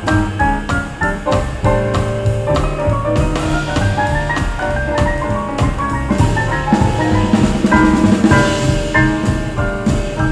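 Instrumental jazz played on a hi-fi system: piano over a drum kit, with a rising run of piano notes about two to four seconds in and a fuller, denser passage a few seconds later.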